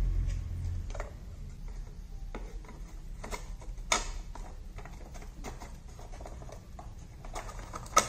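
Pieces of a laser-cut bird house kit being handled and snapped together by hand: scattered light clicks and taps, with a sharper click about four seconds in and another near the end.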